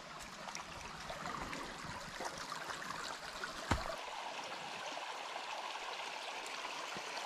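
A small, shallow stream running over stones and gravel, a steady babble of water, with one sharp knock a little past halfway.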